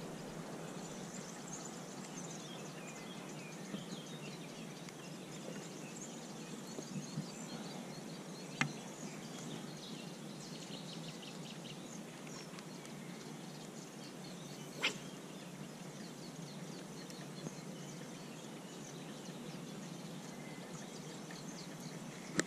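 Faint outdoor background noise with birds chirping. Two sharp clicks stand out, about six seconds apart.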